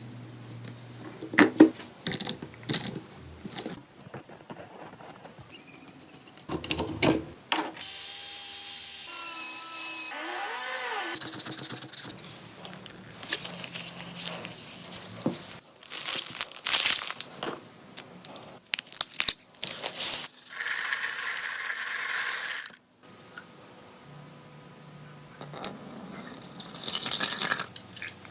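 Workshop sounds of hand work on metal parts: scattered clicks, knocks and scraping, a brief squeak near the middle, and a steady hiss lasting about two and a half seconds about twenty seconds in.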